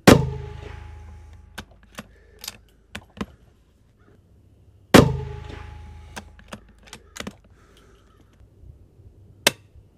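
Two shots from a Marlin XT-22 bolt-action rifle in .22 WMR, about five seconds apart, each with a long echoing tail. Lighter sharp clicks and knocks fall between and after them.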